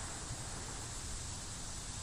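Steady outdoor background noise: an even hiss over a low, fluttering rumble, with no distinct events.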